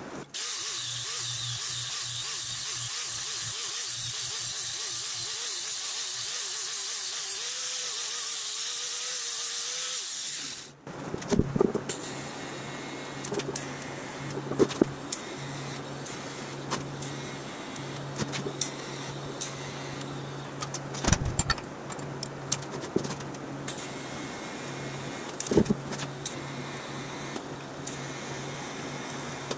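TIG welding arc on a custom engine mount: a steady hiss for about the first ten seconds, then, after a brief break, a steady low hum with irregular crackles and pops as the filler rod is fed in.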